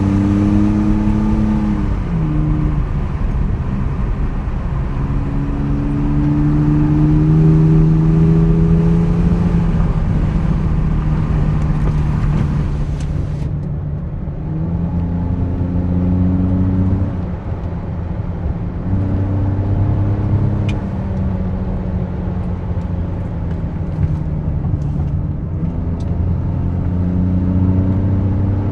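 BMW E39 530i's M54 3.0-litre straight-six with the muffler deleted, pulling and easing off while driving, its note climbing steadily and then dropping several times. A hiss above the engine note cuts off suddenly about 13 seconds in.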